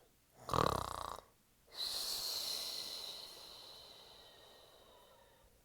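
A snore: a short rough, snorting breath in, then a long breath out with a high whistle that slowly fades away.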